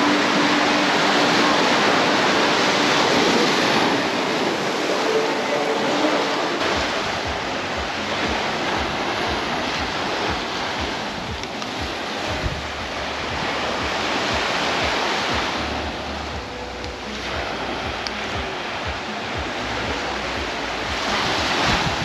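Small waves breaking and washing up on a sandy shore, the surf swelling and easing every few seconds. Wind rumbles on the microphone for a few seconds past the middle.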